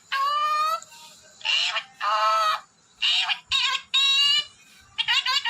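Ringneck parrot giving a string of loud whistled calls, several of them rising in pitch, each about half a second long, then a quick run of short notes near the end.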